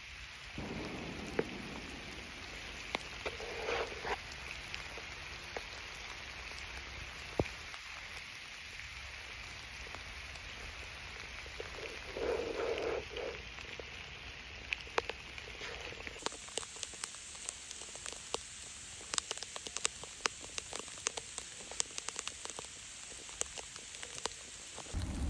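Gentle rain falling in a forest: a steady patter with scattered drops ticking close by, the ticks becoming much denser about two-thirds of the way through. Two short louder sounds stand out, about four and twelve seconds in.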